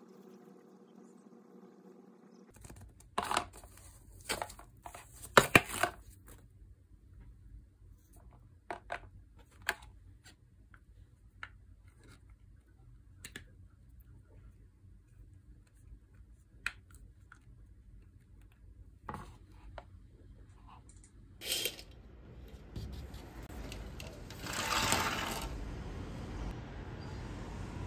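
Hands unpacking and handling a clear plastic phone case and screen-protector film: scattered plastic clicks, taps and crinkles, the loudest cluster a few seconds in. Near the end a steady rushing background noise comes in.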